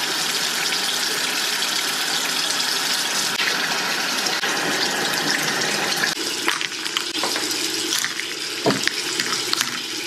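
Bathroom sink tap running steadily while makeup brushes are rinsed under the stream. From about six seconds in the rush of water drops a little and is broken by small splashes as the brushes are worked under it.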